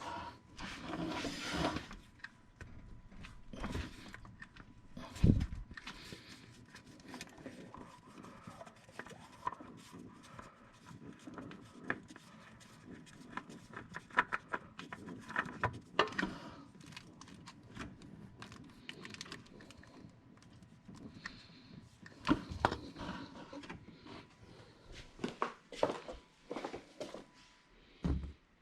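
Irregular clicks, knocks and scrapes of an oil filter being unscrewed and pulled off a 2012 Nissan Sentra's engine, with a louder knock about five seconds in.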